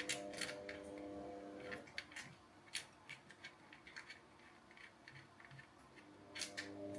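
Small clicks and taps of hand work on a cable and terminal connection, scattered irregularly, with a faint steady hum that stops about two seconds in and returns near the end.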